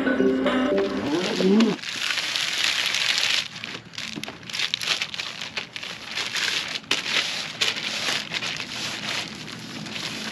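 Packaging rustling and crinkling as it is handled, with many quick irregular crackles. A music tail fades out about a second and a half in.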